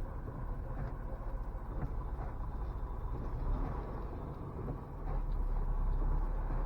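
Semi truck driving, heard from inside the cab: a steady low engine and road rumble that swells slightly about five seconds in.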